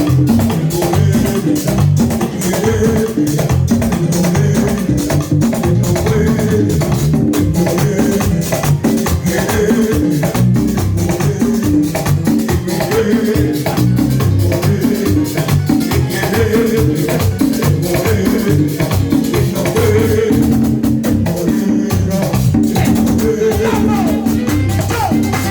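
Live merengue band playing an instrumental passage: full ensemble with hand percussion keeping a fast, even beat.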